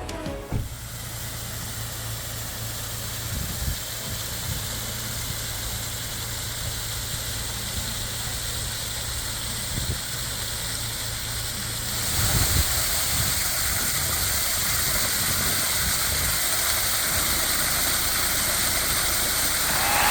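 Car running on the road: a steady low engine hum under tyre and wind hiss, which grows louder about two-thirds of the way through.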